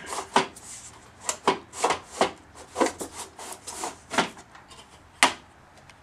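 Hands working at the top of an absorption refrigerator: a string of short scrapes, rubs and knocks as the wiring under the top cover is handled and the cover is lowered, with a sharp knock about five seconds in.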